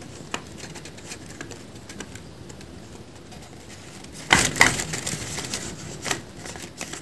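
Scattered light clicks and handling noise, with a louder burst of rustling and clicking about four seconds in that tapers off.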